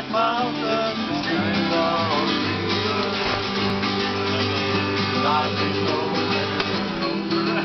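Acoustic guitar being played, strummed chords ringing on steadily.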